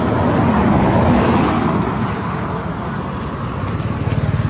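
A motor vehicle's engine running, a low pulsing rumble that swells about a second in, eases off, and rises again near the end.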